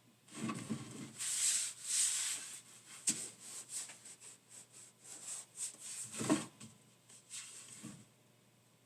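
Hold-down clamps and workpiece being handled on a CNC router bed: irregular rubbing and scraping with scattered clicks, and a louder knock about six seconds in.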